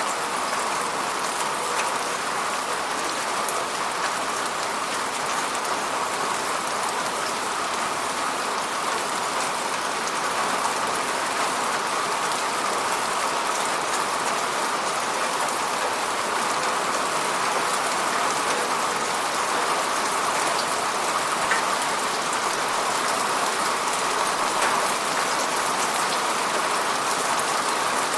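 Steady rainfall, with a dense patter of drops hitting a surface and a few sharper single drop ticks scattered through it.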